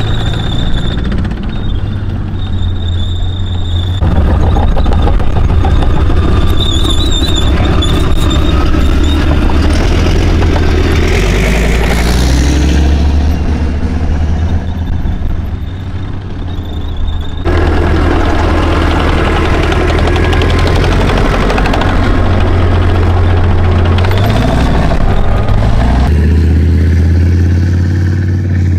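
Leopard 1 main battle tanks' 10-cylinder, 37.4-litre, 830 hp diesel engines running loud as the tanks drive past, with a high squeal from the running gear in the first few seconds. The sound jumps abruptly three times as one drive-by cuts to the next.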